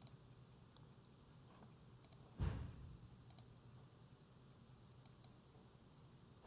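Several faint computer mouse clicks, scattered through the stretch, with one louder dull thump about two and a half seconds in, over a quiet room hush.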